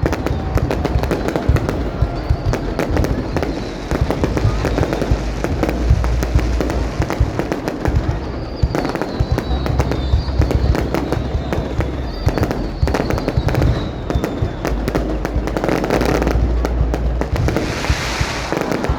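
Aerial fireworks display going off continuously: dense crackling and popping over repeated deep booms, with no let-up.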